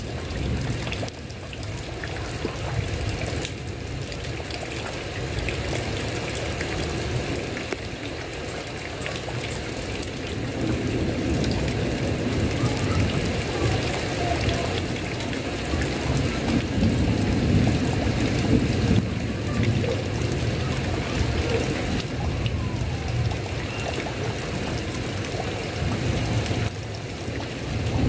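Steady rain falling, growing louder and heavier about ten seconds in.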